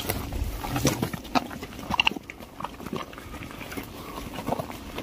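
People walking over a dry, rocky scrub path: footsteps crunching on stones and twigs, with brush scraping, broken by a few short grunts.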